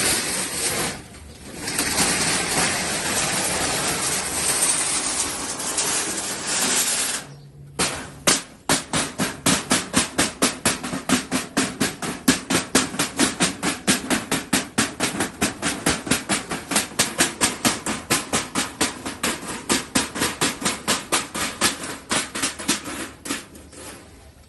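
A steady rushing hiss for about seven seconds that cuts off, then rapid, even strikes, about three or four a second, fading near the end.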